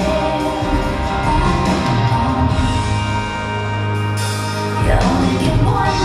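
Music playing for a dance routine, with held tones; a low note is sustained through the middle and a new phrase comes in about five seconds in.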